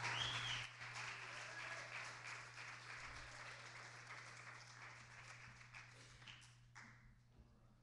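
Congregation applauding a song, the clapping loudest at the start and dying away over about seven seconds, over a steady low hum.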